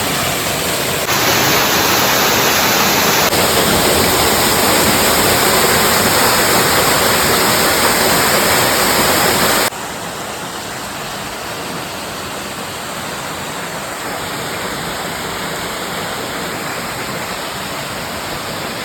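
Waterfall running at high flow: a loud, steady rush of water. The sound shifts abruptly a couple of times early on and drops suddenly to a lower level about ten seconds in.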